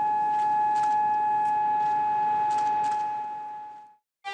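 A memorial siren sounding one long, steady tone for the moment of silence, fading away shortly before the end.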